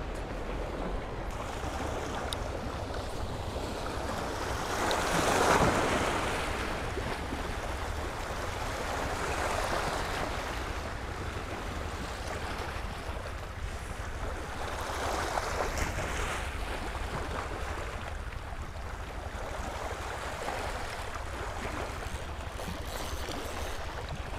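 Small sea waves washing against a rocky shore, swelling and fading every few seconds, the biggest wash about five seconds in. A steady low rumble of wind on the microphone runs underneath.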